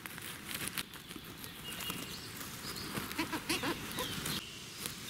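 Rustling and crackling of damp leaf litter and twigs as a person crawls on the forest floor and cuts chanterelle stems with a knife.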